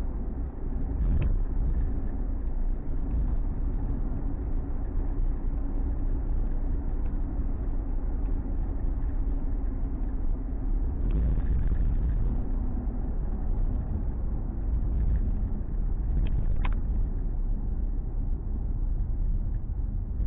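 Ford Mustang on the move, heard from inside the cabin: a steady low rumble of engine and road noise, with two faint clicks, about a second in and near the end.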